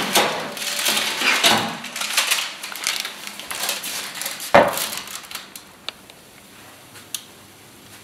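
A metal baking tray scraping and rattling against the oven rack as it is pulled out, then one loud clunk about four and a half seconds in.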